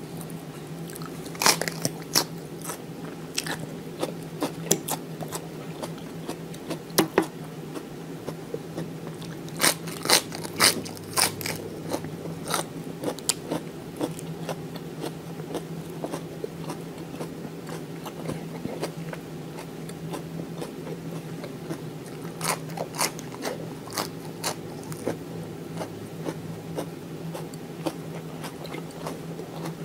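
A person biting and chewing crisp romaine lettuce close to the microphone: sharp, wet crunches come in bunches, loudest about ten to eleven seconds in, over a faint steady low hum.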